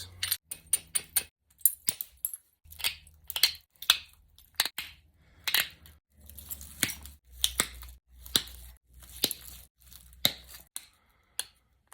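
Flint knapping: stone striking flint in a string of sharp, irregular clicks and knocks, about two a second, as flakes are struck off and the edge is worked.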